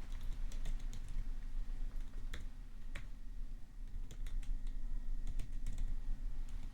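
Computer keyboard typing: irregular keystroke clicks, several a second with short pauses, over a steady rain recording in the background.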